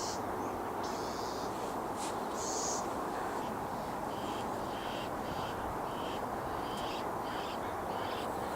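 Barn owls giving rasping, hissing screeches: a few longer ones in the first three seconds, then shorter ones about twice a second, over a steady rushing background noise.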